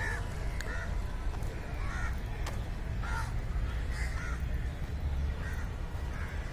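Birds calling repeatedly outdoors, short calls about once a second, over a steady low rumble.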